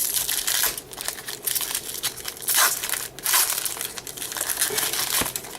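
Foil wrapper of a trading-card pack crinkling and tearing as it is ripped open and handled, in uneven rustling surges.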